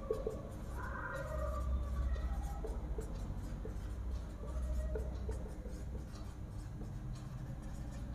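Felt-tip marker writing on a whiteboard: short squeaks and scratchy strokes of the tip as words are written, over a low steady hum.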